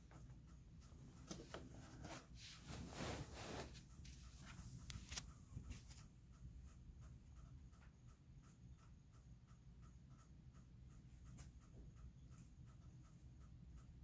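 Quiet handling noise, rustling and clicking as something plastic is moved about, loudest about three seconds in with a sharp click about five seconds in. After that, a faint steady run of short chirps, a couple a second, from a night-calling animal.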